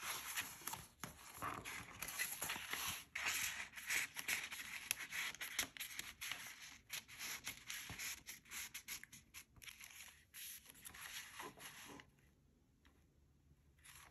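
Paper rustling and crinkling with quick irregular taps and scrapes as journal pages and paper materials are handled; the handling stops abruptly about twelve seconds in.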